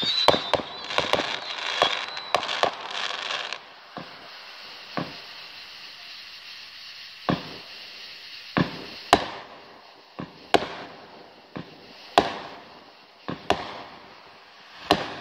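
Aerial fireworks: a dense crackle with a thin high whistle for the first few seconds, then single sharp bangs every second or two.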